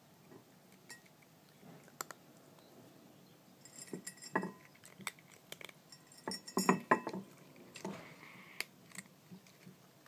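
A cat eating dry kibble from a ceramic dish: crunching, with clicks and clinks of kibble and teeth against the dish. They come in short clusters, loudest about two-thirds of the way through.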